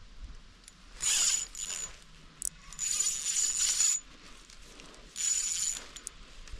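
Ultralight spinning reel being cranked in three short spells, its gears whirring with a thin whine as line is wound in, and a single sharp click between the first two spells.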